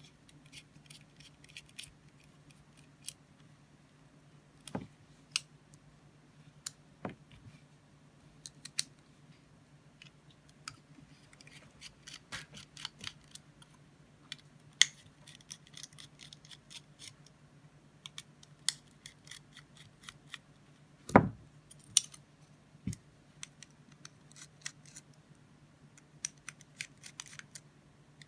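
Irregular small metal clicks and clinks from a titanium-handled folding knife being taken apart, as tools, screws and parts tap against each other, with one louder knock about two-thirds of the way through. A steady low hum runs underneath.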